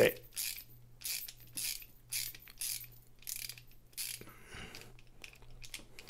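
Ratcheting bit screwdriver clicking in quick runs, about two a second, as it backs out a knife's pivot screw. The clicks turn fainter after about four seconds.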